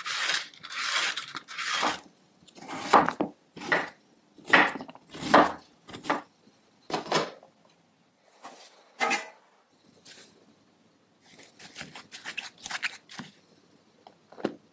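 A handheld peeler scraping the skin off a raw taro root in about ten quick strokes, followed by softer clicks and taps and a single knock near the end.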